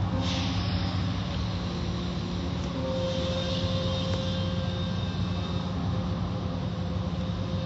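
Automatic car wash machinery running, heard from inside the car's cabin: a steady low hum with a hiss of water and foam spraying over the glass.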